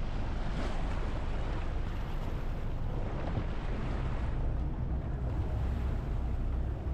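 Motorboat under way on open water: a steady rush of wind buffeting the microphone and water moving along the hull, heavy at the low end.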